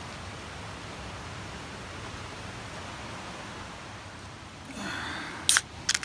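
Steady hiss of outdoor background noise, then a brief rustle and two sharp clicks or knocks near the end.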